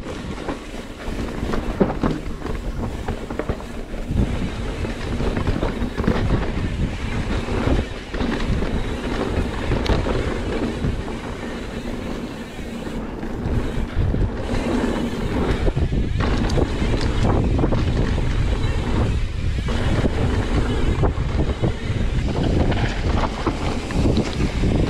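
Mountain bike descending a dirt trail at speed: wind rushing over the microphone and tyres rumbling over the dirt, with frequent knocks and rattles from bumps.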